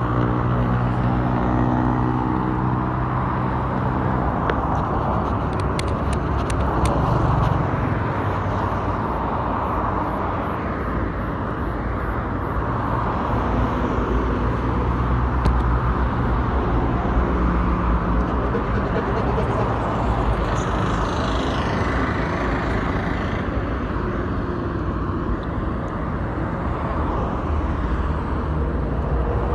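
Steady hum of cars passing on a highway, with a deep engine drone that stops about four seconds in.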